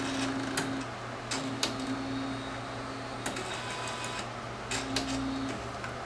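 Inkjet printer mechanism running: a low motor hum that comes and goes in stretches of one to two seconds, over a steady background hum, with a few sharp mechanical clicks.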